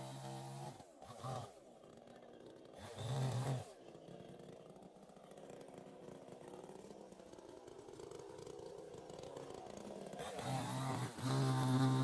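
Chainsaw engine running at high revs, dropping off about a second in and revving briefly around three seconds. It then runs lower and quieter for several seconds before revving back up to a steady high pitch near the end.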